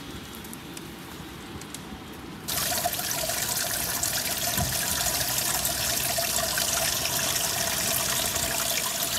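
Rainwater trickling and gurgling steadily into a street drain grate, starting suddenly about two and a half seconds in.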